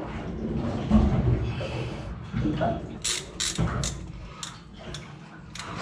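Metal-on-metal knocks and clinks as a bronze raw water pump is worked into place on a Detroit 60 Series marine diesel, with a heavy low knock about a second in, then a quick run of sharp clicks in the second half.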